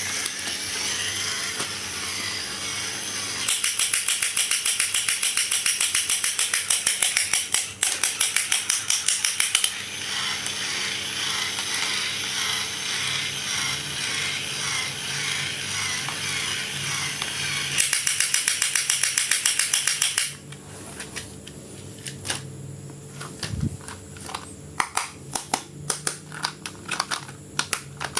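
Toy packaging being opened by hand: a long stretch of rustling and scraping with fast repeated strokes, then scattered light plastic clicks over the last several seconds.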